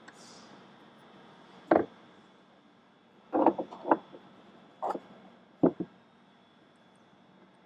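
A handful of short knocks and clatters as the cold air intake's air scoop and brackets are handled and worked on, spread over several seconds with a quick cluster near the middle.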